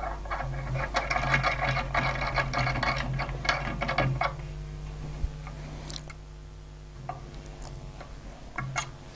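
Small metal parts of a fly-tying vise being handled as an accessory holder is unscrewed and moved: quick clicking and rattling for about four seconds, then a few single clicks, over a steady low hum.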